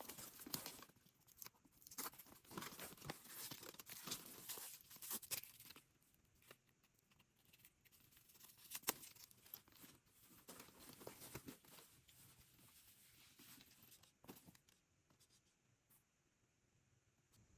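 Faint rustling, crinkling and tearing of packaging as a purse is unwrapped by hand. The handling is busiest in the first six seconds, then thins to sparse, quieter rustles with a sharp click about nine seconds in.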